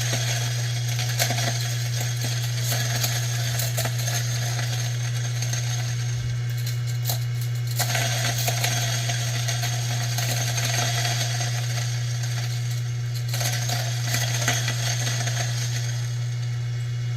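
Ceado E6P espresso grinder motor running with a steady low hum while slow-fed coffee beans crackle and crunch between the burrs as the grinder loads up.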